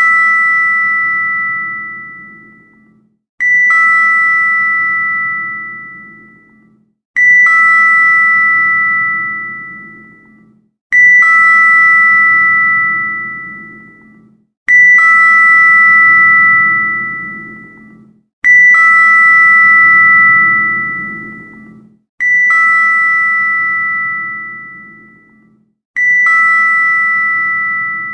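Elevator arrival bell dinging, repeated about every four seconds: each ding strikes sharply with two bright pitches sounding together and rings down over about three seconds. Seven dings start in the span, following the fading tail of one before.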